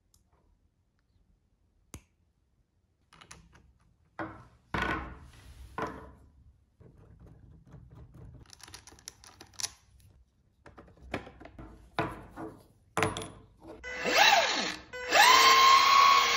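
Scattered clicks and knocks of hands handling a plastic remote-control drift car, its battery connector and its tyres. About two seconds before the end, loud music with a rising then steady tone begins.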